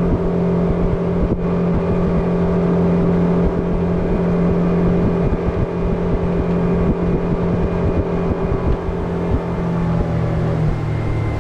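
Mercury F100 four-stroke outboard motor pushing a small aluminium boat along at a steady cruise, a steady engine drone over hull and water noise; about ten and a half seconds in its pitch steps down as the throttle eases.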